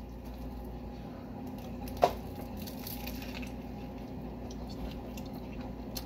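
A person biting into a cheeseburger, with one sharp crunch about two seconds in, then faint wet chewing.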